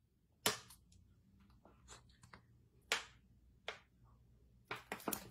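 Handling sounds of a plastic squeeze bottle of liquid detergent and a metal spoon over a plastic funnel: a few sharp, separate clicks a second or more apart with fainter ticks between, then a quick run of clicks near the end.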